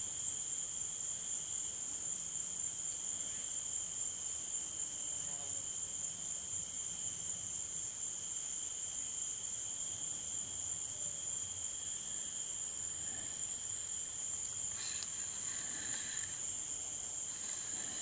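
A steady insect chorus: an unbroken high-pitched drone with a fainter, lower-pitched band beneath it.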